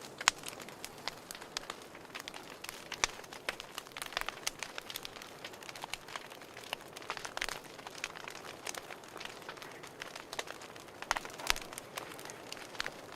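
Wood fire crackling in a fireplace: irregular snaps and pops over a soft hiss.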